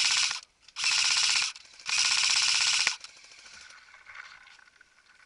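Airsoft gun firing full-auto: three bursts of rapid shots, the last about a second long and ending about three seconds in, with a fainter stretch after.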